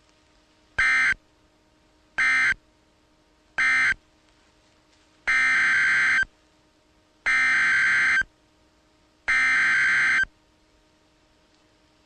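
Emergency Alert System SAME data bursts, harsh buzzing digital tones. Three short bursts, the end-of-message code closing one warning, are followed by three longer bursts, the coded header of the next warning.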